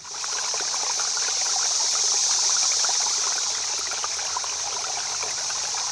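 Steady hissing rush like running water, with fine crackling in it, swelling in over the first half second and then holding level.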